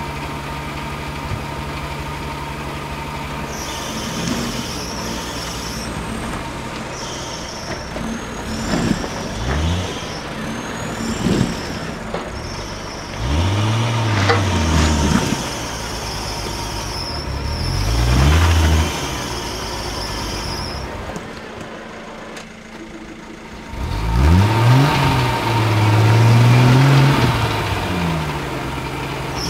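Modified off-road 4x4 engine idling, then revved hard again and again in bursts of a second or a few seconds, the pitch climbing and dropping with each, while a stuck rig is pulled free over boulders with a tow strap. A high whine comes and goes alongside the revs.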